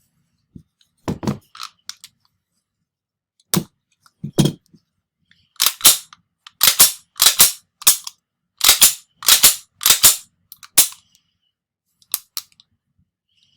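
Steel parts of a reassembled Tokarev pistol clicking and clacking as it is handled: a few scattered knocks and clicks, then a quick run of about eight sharp sliding clacks in the middle, and a couple of small clicks near the end.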